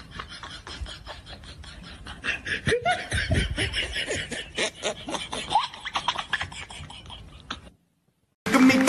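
Teenage boys laughing hard in repeated breathy bursts that grow louder about two seconds in. The sound cuts out near the end, and pop music with singing starts.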